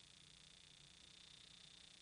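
Near silence: a faint steady hiss with a thin, high, unbroken tone.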